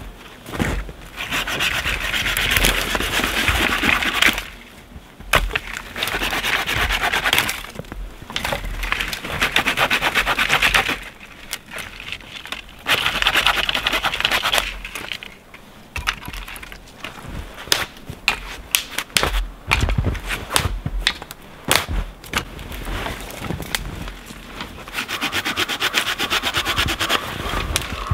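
Folding hand saw rasping through dry dead branches in stretches of a few seconds, with sharp cracks of sticks snapping in between, most of them in the middle.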